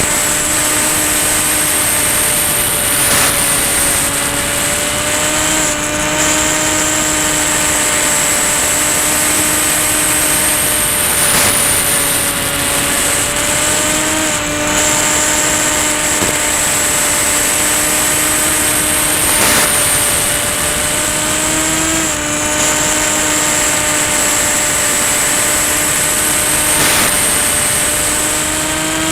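Electric motor and propeller of a Ranger EX FPV plane running steadily in flight, with a high whine that rises and falls slightly in pitch every few seconds over a rush of noise.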